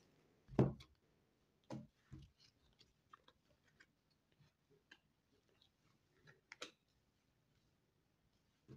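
Playing-size tarot cards handled on a cloth-covered table: a short dull thump about half a second in, then sparse faint taps and clicks as cards are drawn from the deck and laid down, with a sharper double click about two thirds of the way through.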